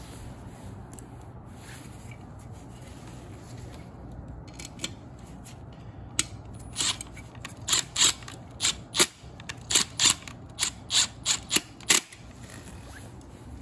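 A screw being turned by hand with a screwdriver, as a short run of about a dozen sharp metallic clicks starting about halfway through and stopping near the end.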